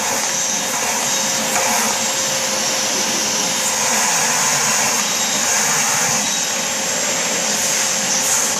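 Vacuum cleaner running steadily: an even, high rushing noise with a faint steady hum beneath.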